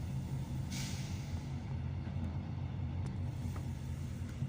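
Steady low rumble of a moving freight train, heard from inside a passenger compartment of the train, with a short hiss about a second in.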